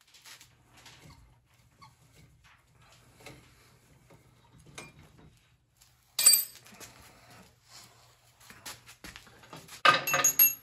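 Metal parts and tools being handled: light metallic clicks and taps, one sharp ringing metal strike about six seconds in, and a louder ringing clatter of metal near the end. A faint steady low hum runs underneath.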